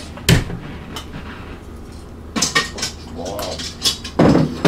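Metal ladle clinking against the Instant Pot's stainless steel inner pot and a bowl while the cooking juice is ladled out: a run of short, sharp clinks, the loudest near the end.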